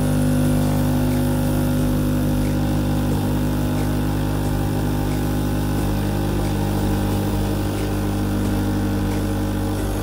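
Krups Dolce Gusto capsule coffee machine's pump running with a steady hum, pumping vinegar through the machine to descale it.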